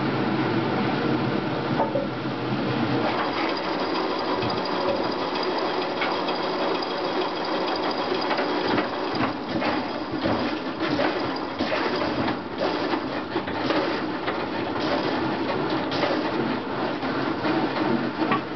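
Roller-driven veneer peeling lathe running with a steady mechanical rattle. From about halfway, irregular clattering knocks come in over it.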